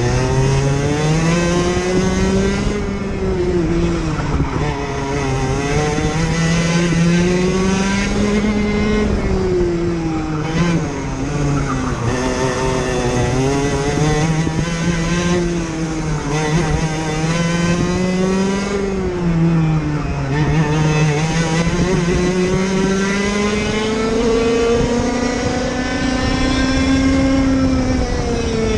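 IAME KA100 kart's 100cc two-stroke engine at racing speed, its pitch repeatedly climbing under acceleration and dropping as the kart slows for corners, with a final drop near the end.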